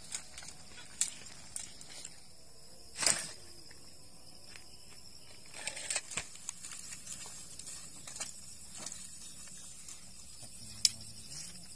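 Steady high-pitched chirring of night insects such as crickets, with scattered rustles and small clicks of handling close by, a brief louder rustle about three seconds in and one sharp click near the end.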